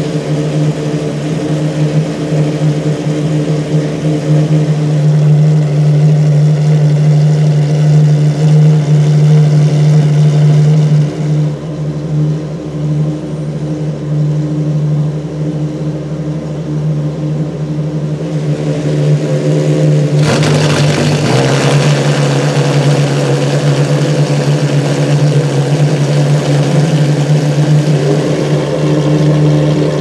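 Ferrari FXX K EVO's V12 engine idling steadily in a garage. About two-thirds of the way through, the note briefly dips and the sound turns louder and rougher, then settles back into the steady idle.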